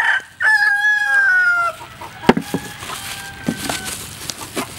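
A rooster crowing: one long call with a slightly falling pitch in the first second and a half, then a fainter crow that runs on for about two seconds. A few sharp knocks come in between, the loudest about two seconds in.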